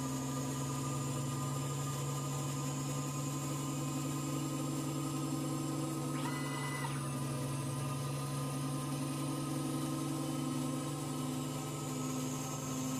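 CNC lathe running steadily, its spindle spinning a milling cutter while a turning tool cuts down the cutter's steel shank: a steady hum with a constant high whine, and a brief higher tone about six seconds in.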